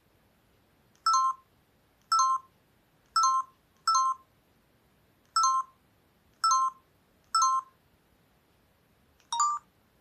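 Newgen C800 mobile phone keypad tones: eight short two-tone beeps, one for each press of the navigation keys, roughly a second apart. The last beep is a little lower in pitch.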